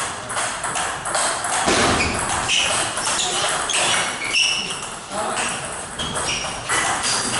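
Table tennis rally: the ball clicking back and forth off the paddles and the table in quick, irregular exchanges.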